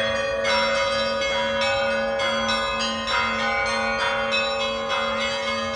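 Church bells being rung: smaller bells struck in a quick, uneven pattern, two or three strikes a second, over the steady hum of larger bells still ringing.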